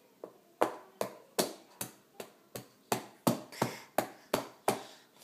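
A toddler's hand slapping a green plastic plate over and over, about three sharp slaps a second, a dozen or so in a row.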